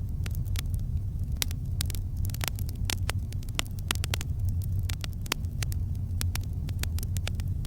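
Campfire burning: frequent irregular sharp crackles and pops over a steady low rumble.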